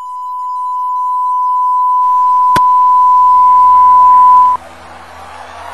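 Steady 1 kHz reference test tone, the beep that goes with colour bars. It grows louder, then cuts off suddenly about four and a half seconds in, with a single click about halfway through. After it come a low hum and faint background noise.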